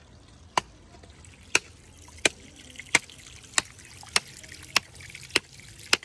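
A blade chopping at a length of bamboo: nine sharp strikes, about one every two-thirds of a second, coming slightly faster towards the end. Water trickles steadily underneath.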